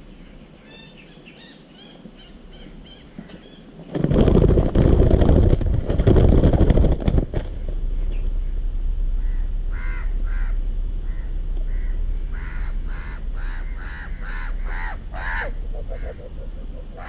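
A loud rustling commotion for about three seconds, starting four seconds in, as the snare traps are reached. It is followed by a crow cawing over and over in a quick series, after faint high bird calls at the start.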